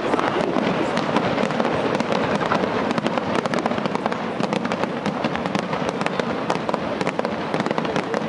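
Aerial fireworks bursting with a continuous dense crackle, many sharp pops a second.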